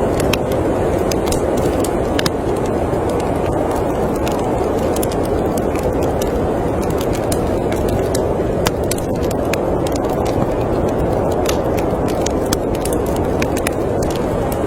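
Steady rushing of storm wind, with a wood fire crackling in small, irregular pops throughout.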